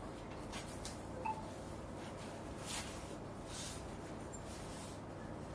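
Faint rustling of a silk saree being unfolded and draped: a few soft swishes over a steady low hum, with a brief faint tone about a second in.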